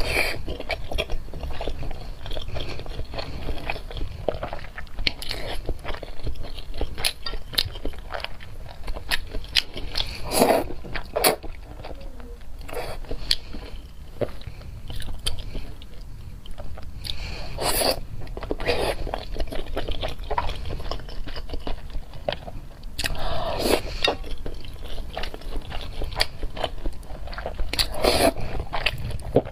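Close-miked ASMR eating sounds: a person chewing and biting food, probably eggs and noodles from the meal, with many small wet mouth clicks and a few louder bites or mouthfuls about every five seconds.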